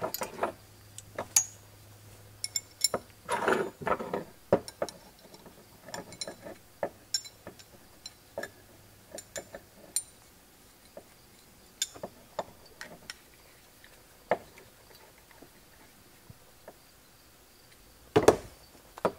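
Steel plier halves and a pivot bolt being handled and fitted together on a wooden bench: scattered small metallic clicks and clinks, some ringing briefly, with a heavier knock near the end.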